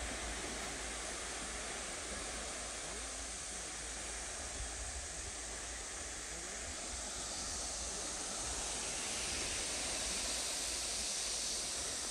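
Steady hiss of wind and small waves washing on a calm sandy beach, growing a little louder and brighter in the second half.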